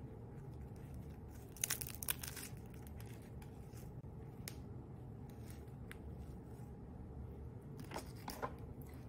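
A slice of sourdough bread torn apart by hand: short crackling, rustling spells from the crust and crumb, once about two seconds in and again near the end.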